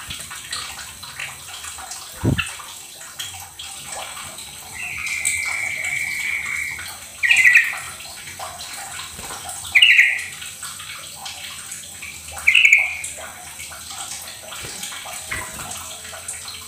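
Yellow-vented bulbul (trucukan) calling: one drawn-out call about five seconds in, then three short, loud, bubbly bursts about two and a half seconds apart, over a steady hiss like running water. A brief low thump comes about two seconds in.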